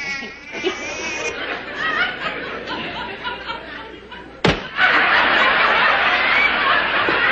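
Studio audience laughing, with one sharp thump about four and a half seconds in, after which the laughter swells much louder.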